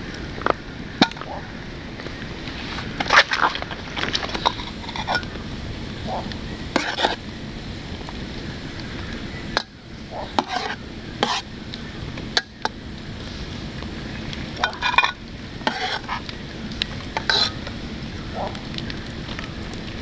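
Food sizzling in a pan, with a utensil stirring and scraping it and clinking against the pan in a dozen or so short, scattered strokes.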